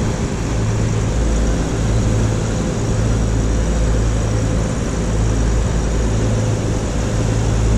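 Motor cruiser's engines running steadily under way: a low, even hum with a constant rush of wind and water over it.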